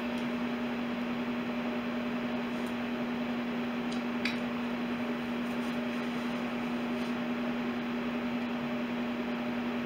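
Steady hum over a hiss, the even background noise of a small room, with a faint tick or two about four seconds in.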